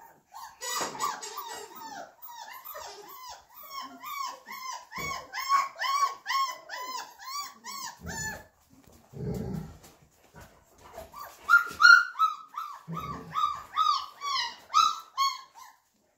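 Flat-coated retriever puppy about four weeks old giving a rapid string of short, high-pitched yips, two or three a second. After a pause of a few seconds, with a low rumble in it, the yipping starts again, a little higher in pitch.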